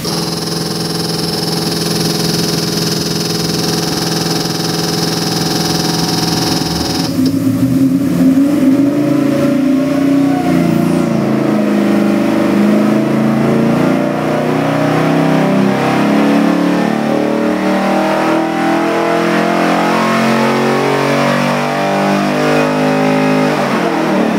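Chevy LS3 416-cubic-inch stroker V8 on an engine dynamometer, idling for about seven seconds. Then it is opened up for a full-throttle dyno pull, its pitch climbing steadily up to about 5,500 rpm, and cut off sharply near the end.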